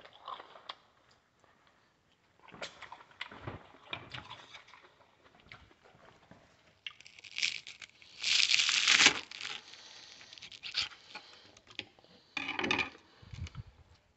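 Intermittent close handling noises, scattered crackles, clicks and rustles, with one louder burst of rustling lasting about a second, about eight seconds in.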